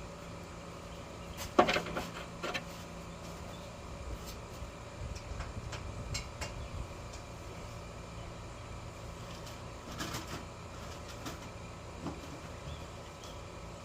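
A few sharp clanks and knocks of tools and parts being handled during work on a car, the loudest about a second and a half in, another cluster about ten seconds in, over a steady low hum.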